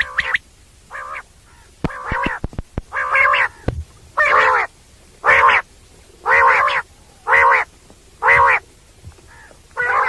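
Common quail calling: a series of about eight short, nasal calls, roughly one a second. A few sharp clicks sound about two seconds in.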